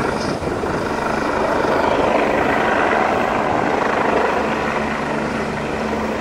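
Medical helicopter flying low overhead, its rotor and engine noise steady.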